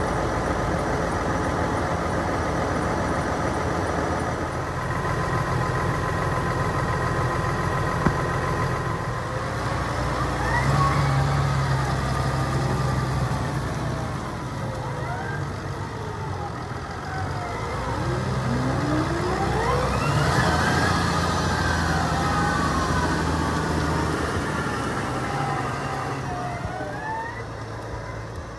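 New Holland T7.220 tractor's six-cylinder diesel engine running as the tractor drives about, swelling louder as it passes close twice, with a whine that glides up and down while it moves. The sound fades over the last few seconds as the tractor pulls away.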